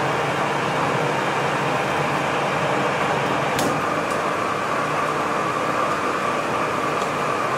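Colchester lathe running steadily while an Alfred Herbert Coventry die head cuts a 1/2-inch BSW thread on a steel bolt blank. A faint steady whine comes in about halfway through, with a single light tick about three and a half seconds in.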